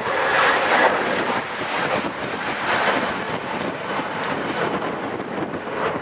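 Airbus A320-232 airliner climbing out after takeoff, its two IAE V2500 turbofan engines at climb power: a steady loud jet rush with a faint high whine over it.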